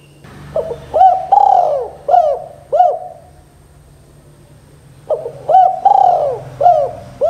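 Spotted dove cooing: two phrases, each of two short coos, one longer drawn-out coo and two more short ones. The second phrase starts about five seconds in.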